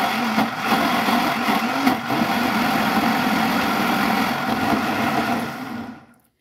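SQ Professional blender's motor running steadily at speed, the blades churning a thick tomato, onion and pepper mix in the jar. Near the end it is switched off and the motor winds down.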